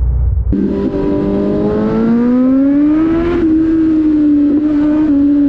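Kawasaki Z900 inline-four engine pulling hard in first gear, its pitch rising steadily to high revs, holding there, then starting to drop near the end.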